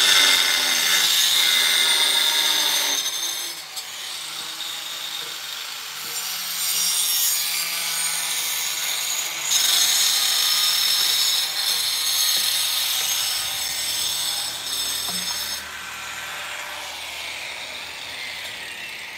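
Angle grinder with a thin cutting disc cutting around a plastic pipe, a high gritty whine as the disc bites. It eases off about three seconds in, cuts again from about six seconds, and stops cutting about sixteen seconds in.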